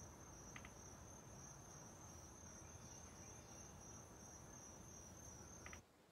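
Faint, steady high-pitched chirring of crickets over a low background hum, with one brief click about half a second in. The sound cuts off suddenly near the end.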